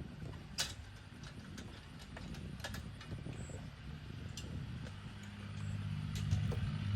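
Scattered light clicks and taps over a low background rumble; about five seconds in, a steady low motor hum sets in and grows louder.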